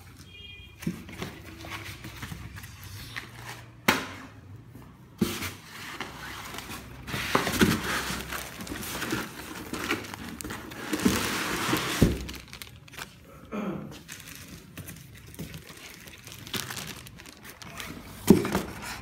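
Clear plastic packaging bag crinkling and rustling as it is handled, loudest for a few seconds in the middle, with scattered sharp knocks and scrapes of cardboard box and foam packing in between.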